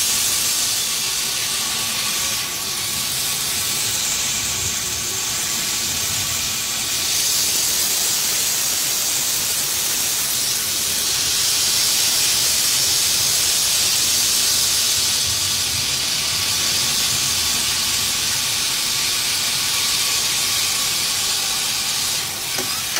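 Steady hissing rush of air and running noise inside a moving train's locomotive cab, with a faint low hum underneath.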